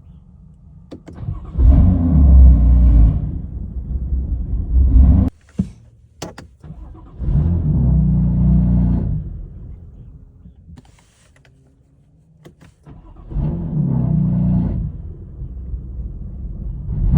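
BMW F80 M3's S55 twin-turbo straight-six running unevenly on a cold start. Its sound swells loud three times and dies away in between, and the first swell cuts off suddenly; sharp clicks fall in the quiet gaps. The owner takes the uneven running for misfires.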